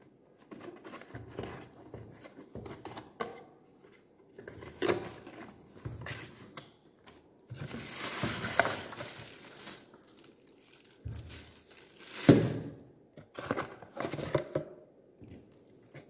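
Small cardboard box opened by hand: flaps scraping and folding, with paper and packaging rustling and crinkling in irregular bursts. There is a longer rustle about halfway through and a sharp, loudest rip-like noise about three-quarters of the way in.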